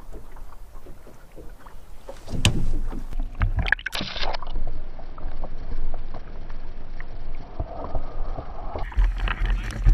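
A landing net splashes into lake water, then a muffled, dulled underwater sound while the net-mounted camera is under the surface. Fuller splashing comes back near the end as the net lifts out.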